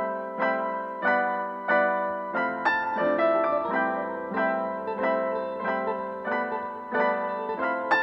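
Background piano music: single notes struck at a steady, even pace, each ringing and fading, with lower bass notes joining about two seconds in.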